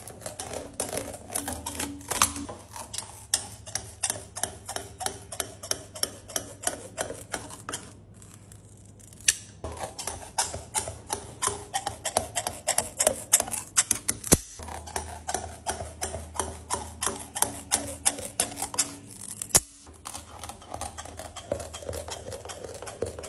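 Steel scissors snipping through a sheet of hard candy: a rapid run of sharp snips, several a second, pausing briefly about eight seconds in, over a low steady hum.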